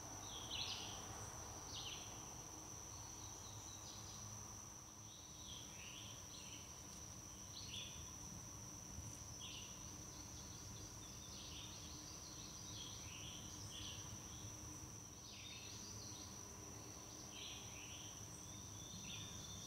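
Faint woodland ambience: a steady, high-pitched insect trill with birds chirping on and off over it.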